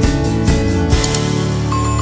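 Instrumental background music: a few struck notes, then a held chord from about a second in.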